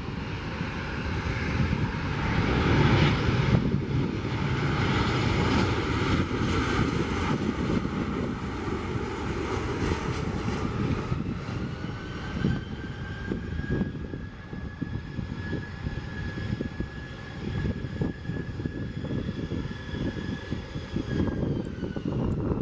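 Boeing 737 jet airliner's engines passing low on landing approach, loudest a few seconds in. From about halfway a steady high engine whine comes in, and it drops in pitch near the end as the jet slows on the runway. Wind rumbles on the microphone.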